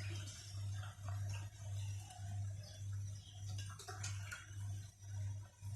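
A low hum pulsing on and off about twice a second, with a few faint clicks.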